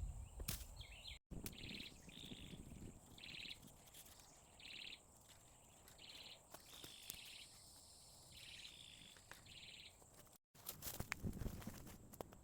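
Quiet outdoor ambience with a series of short, high, raspy calls repeating about once a second. The sound cuts out completely for an instant twice, near the start and near the end, with a few knocks around those gaps.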